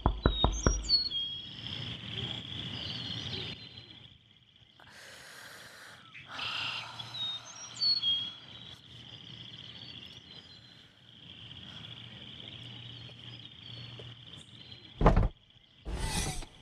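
Knuckles rapping several times on the side window glass of a Honda SUV in the first second, with birds chirping in the background throughout. About 15 s in there is a sharp thump, followed by a short loud rush of noise as the SUV's rear hatch is opened.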